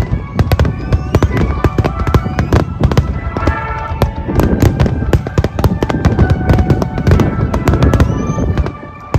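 Dense barrage of aerial firework shells bursting, many bangs in rapid, overlapping succession. The barrage eases off near the end.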